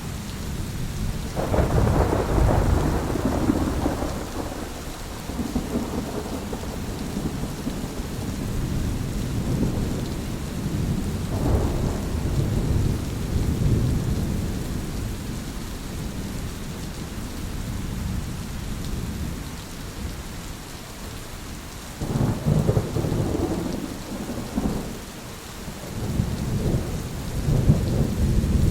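Steady rain with repeated rolls of thunder. The thunder swells about a second in, again in the middle, and twice more near the end.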